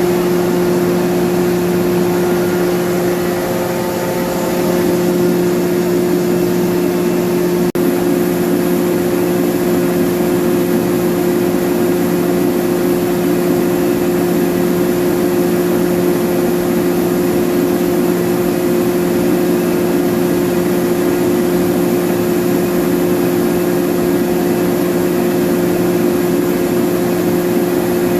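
Atlas Copco GA oil-injected rotary screw air compressor running, a loud, steady hum with a constant mechanical rush.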